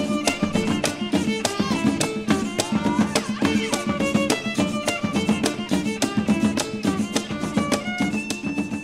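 Background music: a lively instrumental tune with quick, sharply struck notes, growing quieter near the end.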